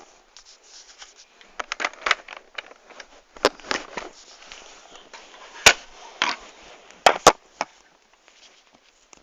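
Plastic clicks, knocks and rattles from a Nerf Retaliator blaster and its dart magazine being handled, as the magazine is worked at and fails to seat easily. A few sharper clicks stand out past the middle, two of them in quick succession.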